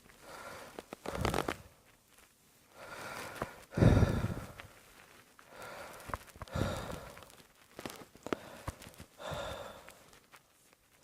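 A person coughing: a run of separate coughs and breaths a second or two apart, the loudest a sharp cough about four seconds in.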